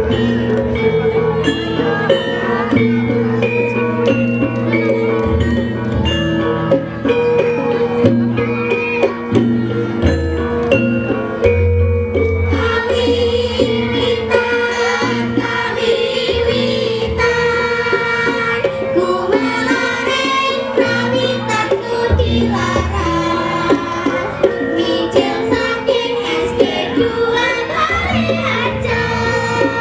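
Javanese gamelan ensemble playing: bronze metallophones ring out a melody over low gong and drum strokes. Voices singing with the ensemble join about twelve seconds in.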